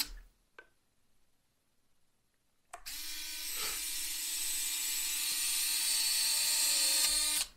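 After a short silence with one faint click, a small electric motor whirs steadily for about five seconds, starting and stopping abruptly: the drive of a Behotec electric landing-gear retract unit being run.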